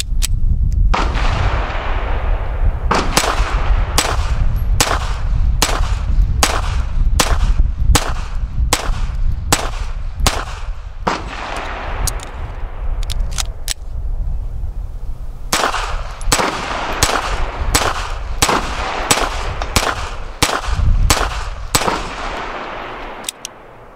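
Suppressed Smith & Wesson Model 2206 .22 LR pistol firing a long run of sharp shots, about two a second, with a couple of short pauses, over a steady low rumble.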